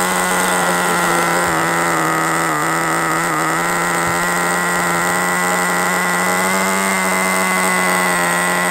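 Nitro RC buggy's small glow-fuel engine idling at a steady pitch while the car sits still.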